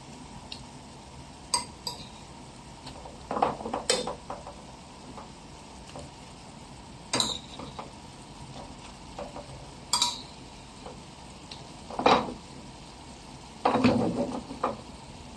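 A utensil scraping and clinking against a frying pan in irregular strokes as burger patties in onion and tomato sauce are stirred and turned, over a steady, soft sizzle.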